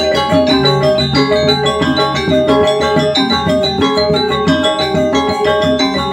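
Balinese gamelan music, with metallophones playing many quick, ringing notes over steady held tones.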